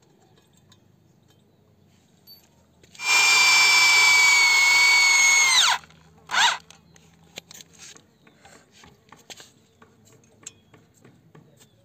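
Corded electric hammer drill running at speed for about three seconds, its whine dropping in pitch as it runs down, then a brief second trigger of the drill; small handling clicks follow.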